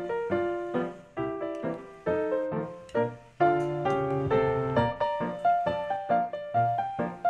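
Background piano music: a melody of quick notes over chords, each note striking sharply and fading.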